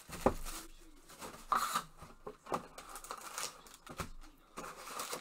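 Gloved hands handling a cardboard Panini Prizm trading-card box: a sharp click about a quarter-second in, then scattered rustles and light knocks of cardboard.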